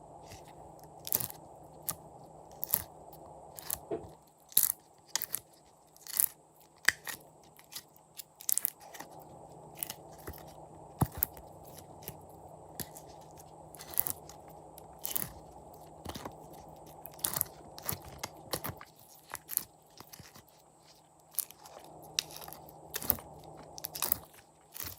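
Glossy slime being squeezed and worked by hand, giving off sharp, wet clicks and pops at an irregular pace of about one or two a second, over a soft rustling.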